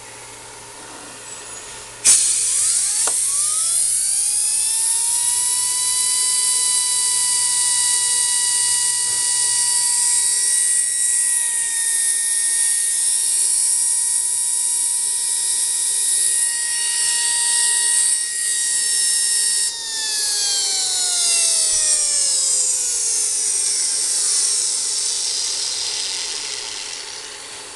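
Dynabrade 51700 air-powered pencil grinder running free with no load. It starts about two seconds in with a burst of air, and its high whine rises in pitch for a few seconds as it spins up. It then runs steadily with a loud hiss of exhaust air. About twenty seconds in, the whine falls slowly in pitch as the grinder winds down, and the hiss fades out near the end.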